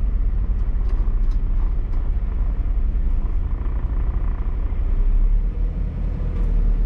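Low, steady rumble of a vehicle driving slowly, heard from inside the cab.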